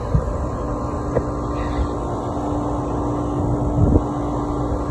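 Refrigeration condensing unit running: the newly replaced compressor hums steadily while the system, still low on refrigerant, is being charged. A steady hum tone joins about halfway through, and there are a couple of brief knocks.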